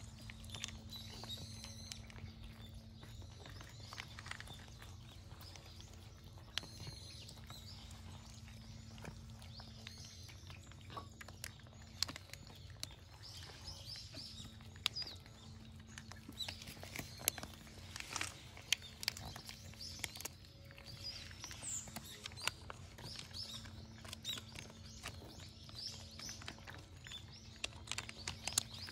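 Stray cats crunching dry food, a run of small irregular clicks and crunches, with birds chirping in the background. A steady low hum sits under it.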